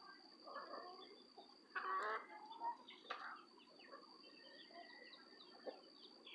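A flock of chickens clucking softly as they feed, with one louder call about two seconds in and a few short calls after it. A faint steady high-pitched tone runs underneath.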